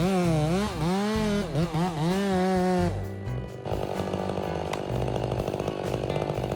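Chainsaw engine revving up and down several times, then running more steadily from about three seconds in.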